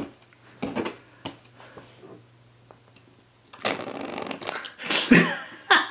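Squishy rubber Goo Goo Galaxy Goo Critter figure slurping glitter slime up through its mouth as it is squeezed and released. A few soft squishes come first, then a longer slurping suction noise starting about three and a half seconds in.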